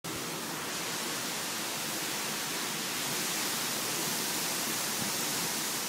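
Strong thunderstorm wind rushing steadily through the trees, as a loud even hiss with no breaks.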